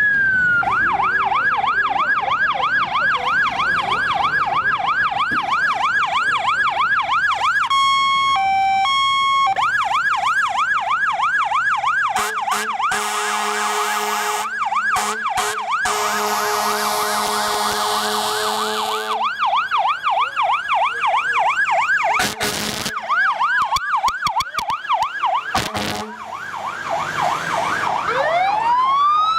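Emergency vehicle electronic sirens, loud. A wail rising at the start gives way to a fast repeating yelp, broken briefly about 8 seconds in by a two-tone hi-lo. A steady horn-like tone sounds over the yelp for several seconds in the middle, and a new wail starts rising near the end.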